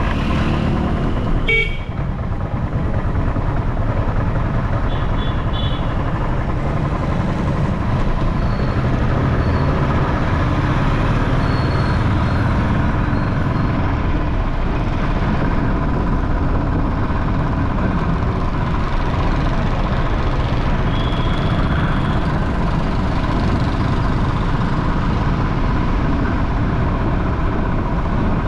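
Steady road and traffic noise heard from a motorbike riding through city traffic, with vehicle horns beeping briefly a few times, around five seconds in and again past the twenty-second mark.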